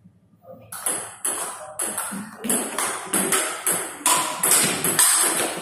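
Table tennis rally: the ball clicking in quick succession off the bats and the table, starting about a second in.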